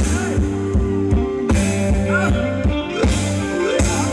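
Live band playing Thai ramwong dance music, with a steady drum beat under sustained bass and melody notes.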